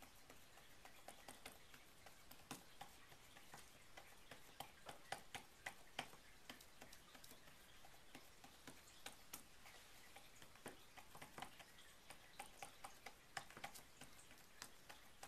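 Faint, irregular soft clicks and crackles as fingers press crumbly solid bubble bath mixture into a silicone flower mold.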